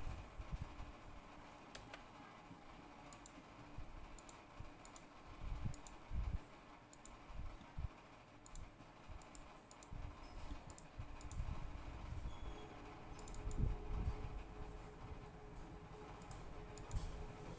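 Faint clicking from a computer mouse and keyboard, scattered single clicks and quick pairs, over a low background rumble with a few dull thuds.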